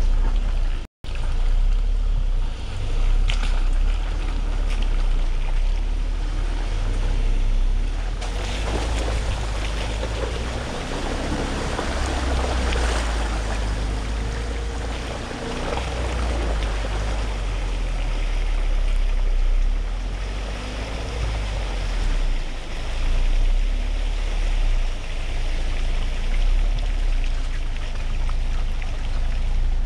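2020 Ford Ranger 4x4 driving off-road: a low engine and drivetrain rumble under a steady rushing noise that swells about eight seconds in and eases again after about sixteen seconds. The sound cuts out for an instant about a second in.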